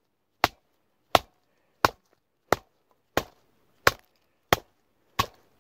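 J. Adams survival knife chopping into a bark-covered stick laid on a log: eight sharp, evenly spaced strikes, about three every two seconds.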